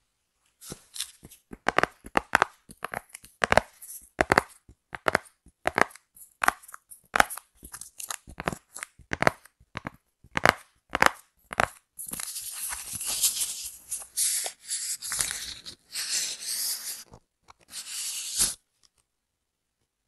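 Phone screen-protector film and its paper packaging being handled close to the microphone. First comes a long run of sharp taps and clicks. From about twelve seconds in there are some five seconds of unbroken crinkly tearing and peeling, and one last short burst of it.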